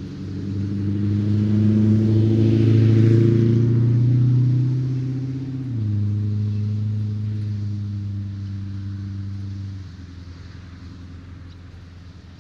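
A motor vehicle's engine passing by as a steady low hum. It grows louder over the first few seconds, drops a step in pitch about six seconds in, and cuts off abruptly near ten seconds.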